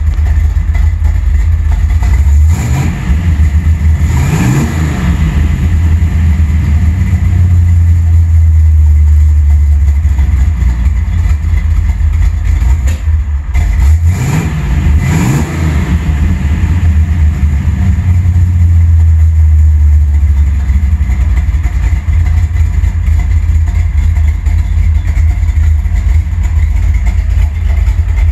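Carbureted truck engine idling roughly and revved briefly twice, about three and fourteen seconds in, popping back through the carburetor, which the owner puts down to a timing or carburetor problem.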